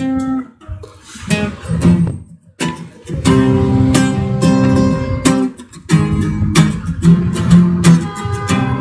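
Acoustic guitar played solo: a few single picked notes, then full strummed chords from about two and a half seconds in.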